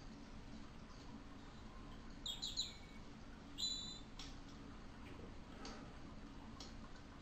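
Faint scratching strokes of a Faber-Castell coloured pencil shading on paper, over a low steady hum. Two short, high bird-like chirps stand out a little before the middle.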